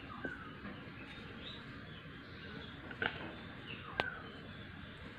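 Faint bird chirps: short falling calls heard several times over a steady background hiss. Two sharp clicks come about three and four seconds in.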